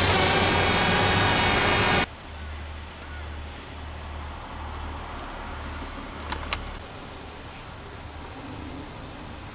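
A loud steady sound cuts off about two seconds in. It leaves a low vehicle engine rumble, pulsing evenly and heard from inside a truck cab, with two sharp clicks about midway.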